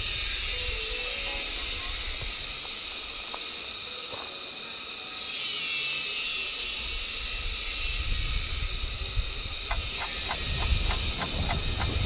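Tropical forest insect chorus, a dense steady high-pitched hiss that shifts in tone a couple of times, with a fast run of clicks, about five a second, in the last two seconds.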